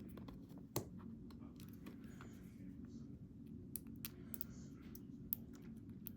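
Scattered light clicks and taps of small metal lock parts being handled while an EVVA ICS lock is taken apart, with one sharper click about a second in, over a steady low hum.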